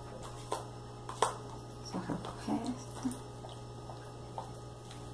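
A metal spoon clicks and scrapes against plastic tubs while soft gelatin is scooped out and cut up, with the sharpest click about a second in. A few short low squelchy sounds come around two to three seconds in, over a steady low hum.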